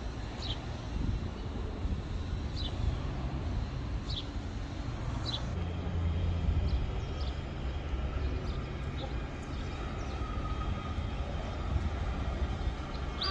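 Distant electric suburban train approaching the station: a steady low rumble, with a faint steady whine that sets in about halfway through. A few short high chirps sound over it.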